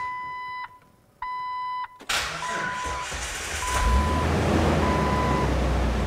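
Two electronic beeps. Then, about two seconds in, a Jeep's 4.0-litre inline-six cranks and fires, running on a NOCO GB70 jump starter clamped to its dead battery. The engine settles into a steady low running sound while a chime beeps three more times.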